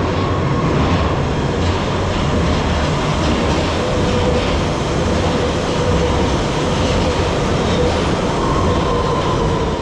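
London Underground Central line tube train (1992 stock) pulling into an underground platform: a loud, steady rumble of wheels on rail, with a thin whine coming in about halfway through.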